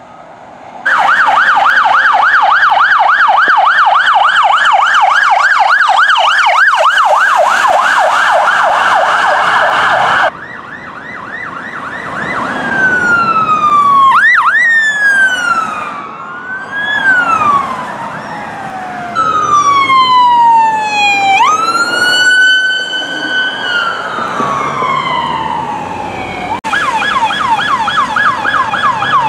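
Electronic police sirens on responding vehicles. A fast yelp starts about a second in. After an abrupt change about ten seconds in, a slow wail falls and snaps back up in pitch several times. A fast yelp returns near the end.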